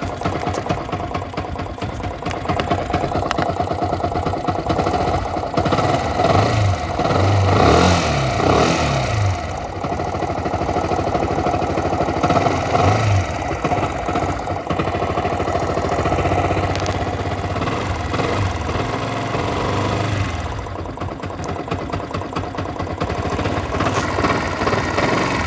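Yamaha R15 V1's single-cylinder 150 cc engine running and revved up and down a few times, carrying timing chain noise from a slack cam chain. This kind of noise is most often caused by a worn timing chain tensioner.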